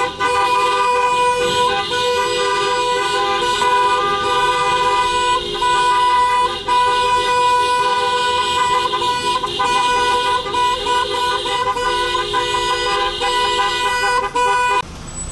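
Vehicle horns held down in a long, steady blare, with a second horn tone joining and dropping out at times; the sound cuts off suddenly near the end.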